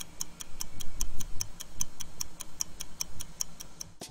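Rapid, even ticking, about five ticks a second, over an uneven low rumble; it stops suddenly near the end.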